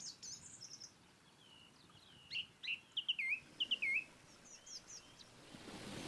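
Birds singing and chirping: a run of short, high whistled notes, several of them swooping downward, loudest in the middle. Near the end a soft rustling noise builds up.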